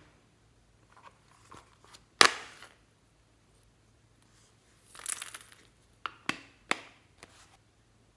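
A plastic case snapping open with one sharp click about two seconds in, then a crackly patter of polystyrene foam pieces tipped out into a bowl, followed by three quick sharp plastic clicks.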